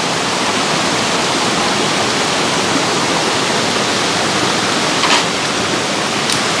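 Waterfall rushing steadily, a constant roar of falling water, with one brief sharp click about five seconds in.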